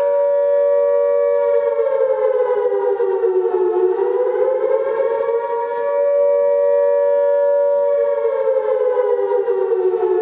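Air-raid siren wailing: a steady high note that sinks and climbs back about halfway through, then holds and sinks again near the end.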